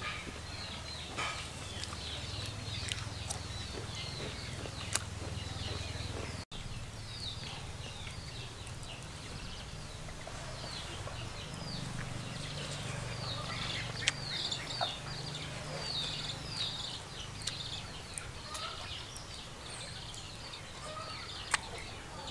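Small birds chirping over and over, many short quick downward chirps that are busiest about halfway through, over a faint low hum and a few sharp clicks.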